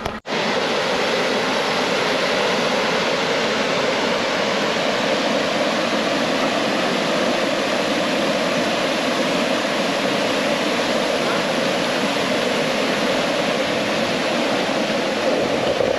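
A mountain stream rushing over rocks in small cascades: a steady, even rush of water.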